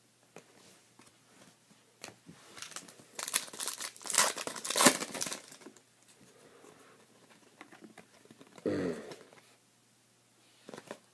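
Trading-card pack wrappers being torn open and crinkled by hand, in a run of rustling and tearing that is loudest midway. A short falling sound comes near the end.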